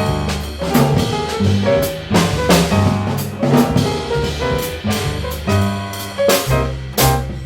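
A small jazz band plays live, with bass and drum kit, and frequent drum and cymbal strokes cut through the music.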